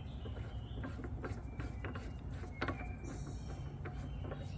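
Irregular light clicks and taps of metal parts and a hand tool as an exhaust slider's bolt is screwed back in, over a low steady hum.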